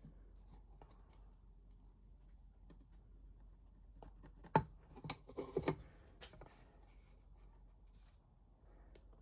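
Small workpieces and hand tools being handled on a bench: faint scratching and rubbing, then a quick cluster of sharp knocks and clicks about halfway through, the first one the loudest.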